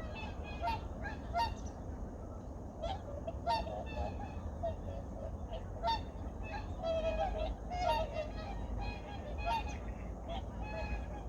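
A flock of wild geese honking, many short overlapping calls coming irregularly, over a low steady rumble.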